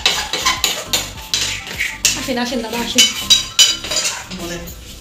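A metal spoon clinks and scrapes against a steel pot of boiling milk, stirring in rice-flour dumplings (dudh puli). There are many short, sharp metallic clinks.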